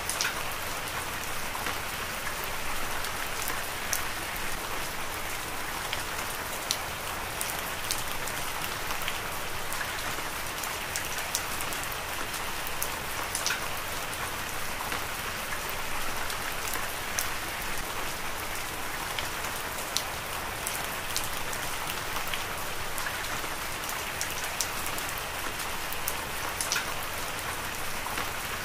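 Heavy rain falling: a steady hiss of rain with scattered sharp drop splats.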